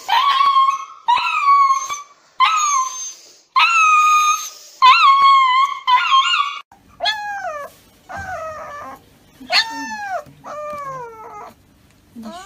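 A husky held for an injection crying out in a run of long, high howls, about one a second. Then a husky puppy gives shorter cries that drop sharply in pitch. Both are dogs protesting at being restrained for a shot.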